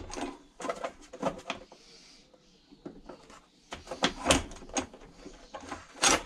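Hard plastic engine cover of a Ryobi petrol lawnmower being pushed and knocked down into place by hand: a series of sharp plastic clacks and knocks, loudest about four seconds in and again near the end.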